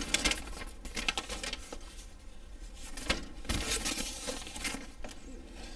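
Paper rustling and crinkling in irregular crackles as a large folded paper sheet is unfolded and handled.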